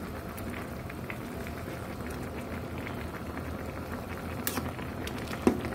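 Spicy hot pot broth boiling hard in an aluminium pot on a gas burner, bubbling steadily. Near the end a metal ladle clinks twice against the pot, the second time loudest.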